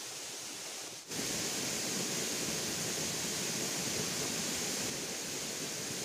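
Steady rush of river water tumbling over a small waterfall. It dips briefly about a second in, then carries on louder.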